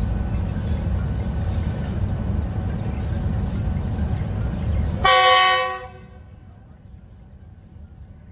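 Passenger train running with a heavy, steady low rumble, then about five seconds in a short, loud blast of a locomotive horn, after which the rumble falls away to a much quieter background.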